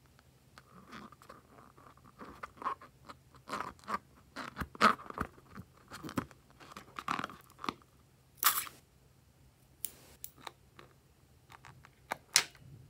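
Hands handling and squeezing a slime-filled rubber balloon: irregular crackling and clicking, with a loud click about five seconds in and another near the end.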